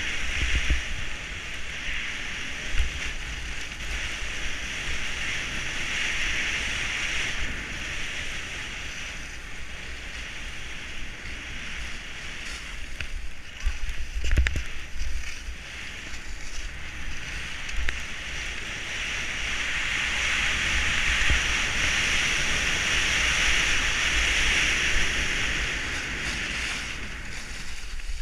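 Skis hissing and scraping steadily over groomed snow on a downhill run, louder in the last third, with wind buffeting the GoPro microphone and an occasional low thump.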